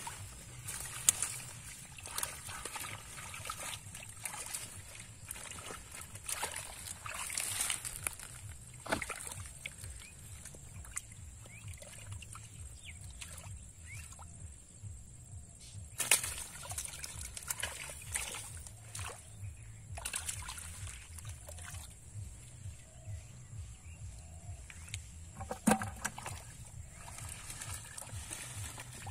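Shallow muddy pond water sloshing and splashing as hands grope through it and bare feet wade, with a few sharper splashes standing out.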